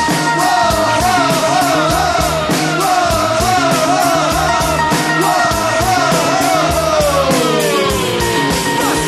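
Live band music: a steady drum beat with about four hi-hat strokes a second under a wavering lead melody, which slides downward over the last couple of seconds.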